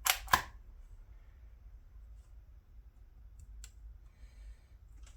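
Two sharp clicks a fraction of a second apart from a DYMO manual embossing label maker as its handle is squeezed to press a letter into the tape, then a faint click about three and a half seconds in.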